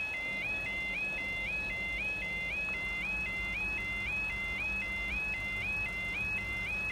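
UK level crossing's audible warning, the yodel alarm, sounding: a high warbling tone that steps up in pitch and repeats about twice a second, the warning that the crossing is closed to road traffic.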